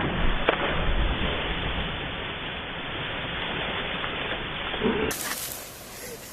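Steady rushing-water noise with a heavy low rumble, cutting off abruptly about five seconds in to a quieter background.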